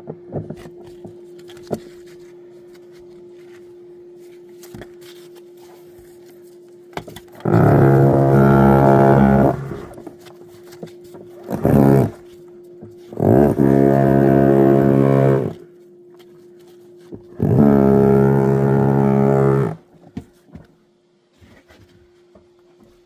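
A loud droning power tool switched on in three bursts of about two seconds each, with a short blip between the first two, over a steady low hum.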